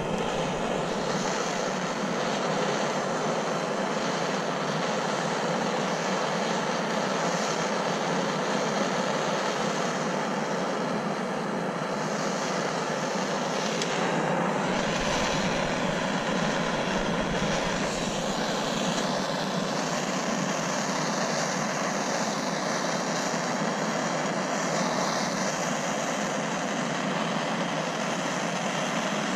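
Handheld gas torch burning continuously with a steady hissing roar of flame.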